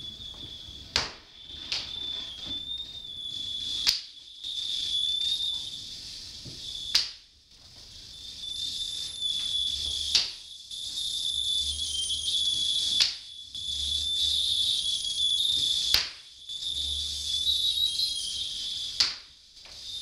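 A leather belt's loose end lashing against a wall with a sharp crack about every three seconds, seven times in all. Under the cracks runs a harsh electronic noise drone with a high whistling tone; it drops away after each crack and swells back.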